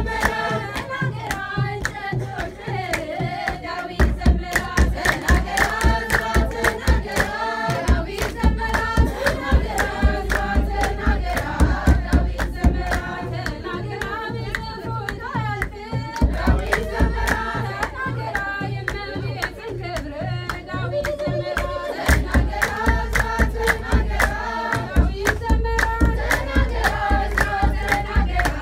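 Women singing an Ethiopian Orthodox hymn (mezmur) together, with a kebero drum beating a steady rhythm and hands clapping along. The drum drops out briefly a few times while the singing and clapping continue.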